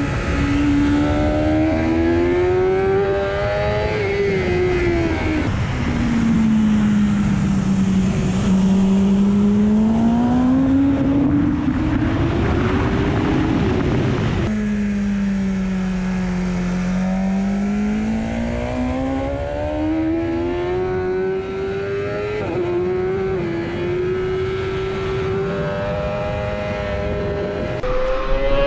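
BMW S 1000 RR superbike's 999 cc inline-four engine running at speed, its pitch rising and falling smoothly over several seconds with throttle and road speed. The note changes abruptly about halfway through.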